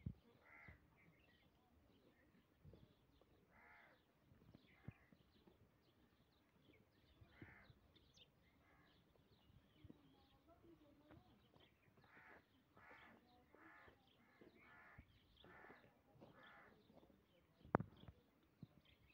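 Faint harsh bird calls repeated in the background, a few spread out and then a quick run of them near the end, with a few soft knocks and one sharp knock near the end that is the loudest sound.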